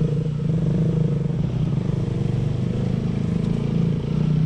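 Motorcycle engine running steadily at low, even revs, without revving up or down.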